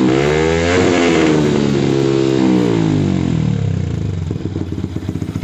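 Motorcycle engine revved hard through a replica Akrapovic slip-on silencer with its dB killer valve open, ear-splitting when revved. The revs climb to a peak about a second in, then fall away and settle to a steady idle near the end.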